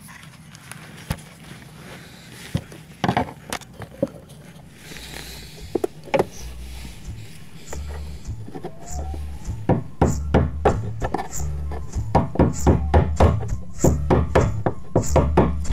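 Sharp metallic knocks of a hammer tapping a tool against the fuel pump's metal locking ring to turn it loose. From about six seconds in, background music with a bass line and a steady beat joins and grows louder.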